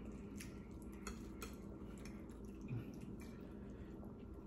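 Quiet eating sounds while chewing spaghetti: a few short, wet mouth clicks and smacks, with a fork working in the pasta on a ceramic plate. A soft low thump comes a little after the middle.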